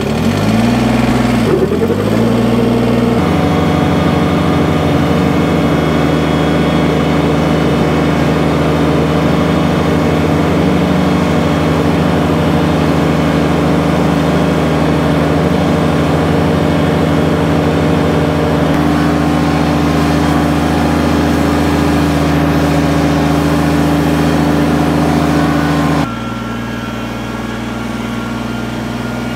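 Kubota BX subcompact tractor's three-cylinder diesel engine, revving up and down for the first few seconds, then running at steady speed as the tractor drives. About three seconds from the end it drops to a quieter, different engine tone.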